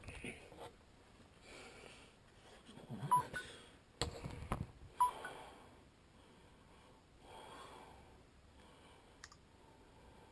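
Faint breathing of a sleeping man with sleep apnea, with a couple of short, louder snorting breaths a little past the middle and a few sharp clicks.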